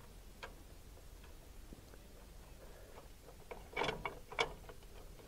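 Light metallic clicks and taps of a bolt and a steel cover being fitted by hand, with a brief louder rattle of clicks about four seconds in.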